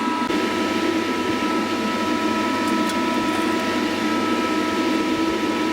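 Steady mechanical hum and whir of a powered-up Mazak V-414/32 CNC milling machine and its control, with two steady high-pitched tones over it.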